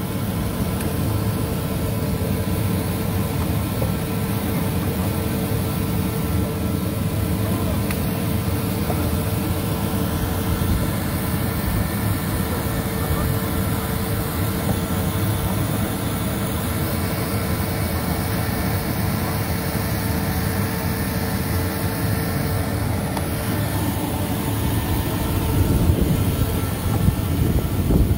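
Steady engine noise: a rushing drone with faint, constant whining tones, turning more uneven and gusty near the end.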